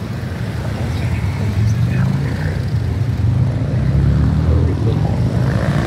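Harley-Davidson motorcycles' V-twin engines running, a deep pulsing exhaust note that grows louder about halfway through.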